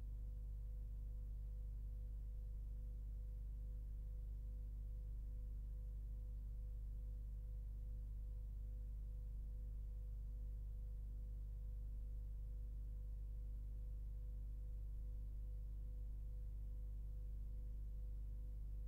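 Steady low electrical hum with faint higher tones above it, one of them pulsing gently; no other sound.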